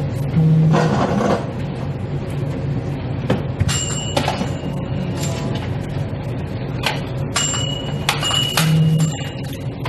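Steady background hum of a convenience store, broken by several sharp clicks and light ringing clinks in the second half.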